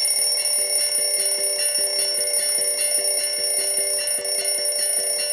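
iHome clock radio's alarm going off: a loud, continuous electronic ringing made of several steady high tones, with a fast regular pulsing beneath.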